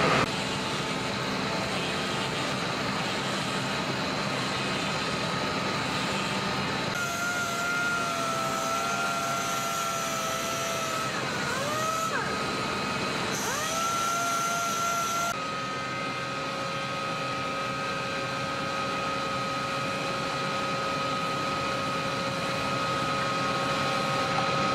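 Woodworking machinery running steadily, changing abruptly twice as one machine gives way to another. In the middle stretch a motor's steady whine dips sharply in pitch twice and comes back up.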